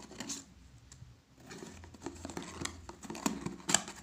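Cardboard box and wrapping being handled, rustling and crinkling in uneven bursts with small taps and knocks, busier and loudest near the end.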